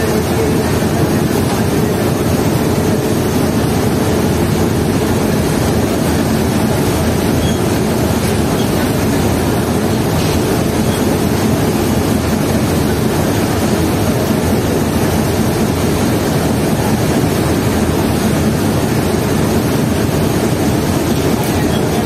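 The MV Tasrif 1 river passenger launch's diesel engines running hard under way, mixed with the rush of propeller wash churning at the stern; a steady, heavy drone with no letup.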